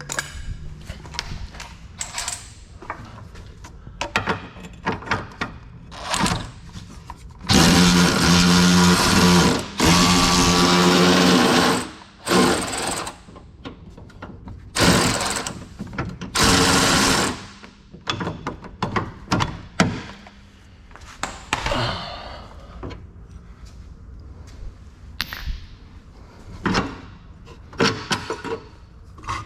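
Power tool running in several bursts, the longest about four seconds starting some eight seconds in, with shorter runs after it. Scattered clicks and clanks of hand tools and metal parts fill the gaps.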